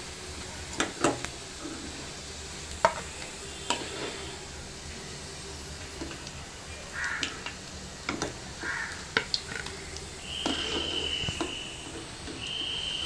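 Chicken kofta balls sizzling as they fry in hot oil, with sharp clicks of a metal spoon against the pan as they are turned and lifted out. A steady high tone sounds twice near the end.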